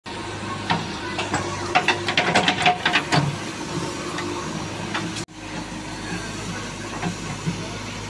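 JCB 3DX backhoe loader's diesel engine running steadily as the backhoe digs, with a run of sharp knocks and clanks in the first three seconds or so. The sound cuts out for an instant just past five seconds.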